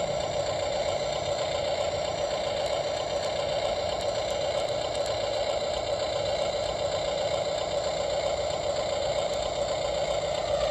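Electric drive motors and gearing of an RC model excavator running with a steady mechanical whir, holding an even pitch throughout.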